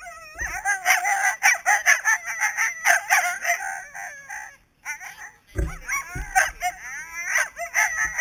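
Harnessed Siberian huskies yelping and yowling in rapid, high-pitched cries, broken by a pause of about a second in the middle: the eager noise sled dogs make while held back at the start of a run.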